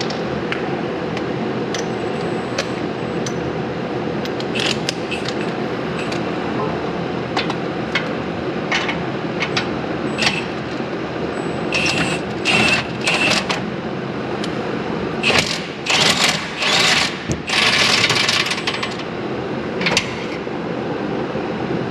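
Ratchet wrench on a socket extension working loose the front suspension bolts: scattered metal clicks and short runs of ratcheting, some with a light metallic ring, over a steady background hum. The clicking grows denser and faster in the second half.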